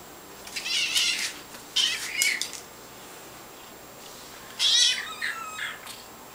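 A kitten mewing three times in short, high-pitched calls, the last one a little longer.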